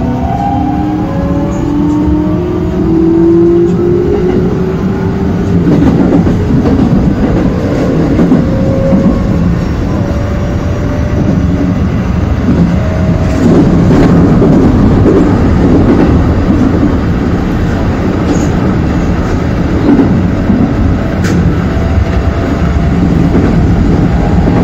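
Keikyu Main Line local train pulling away: its electric traction motors whine in several tones that climb in pitch over the first few seconds, then give way to a steady running rumble of wheels on rail, with a few sharp clicks.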